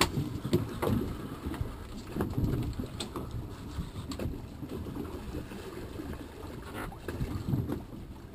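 Wind buffeting the microphone and water sloshing against a boat's hull, an uneven low rumble, with a few short knocks on the boat about a second, three seconds and seven seconds in.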